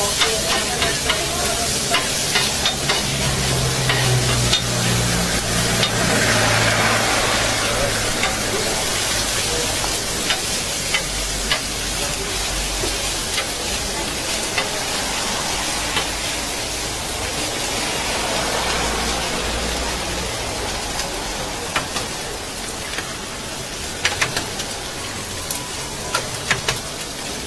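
Diced meat sizzling on a hot flat steel griddle, with a steady frying hiss and many sharp clicks and scrapes of a knife blade on the metal as the meat is tossed and chopped.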